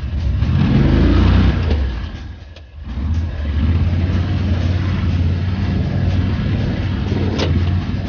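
Engine of an Argo amphibious ATV running under throttle. It eases off briefly about two and a half seconds in, then picks up again and holds steady, with a short sharp click near the end.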